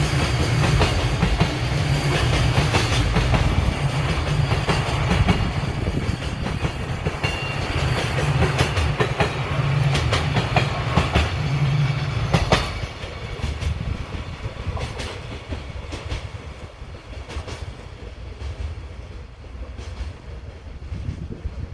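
Container wagons of a long freight train rolling past at close range, a steady rumble with wheels clacking over rail joints. About thirteen seconds in the loud part stops abruptly as the end of the train passes, leaving a fainter receding rumble with occasional clacks.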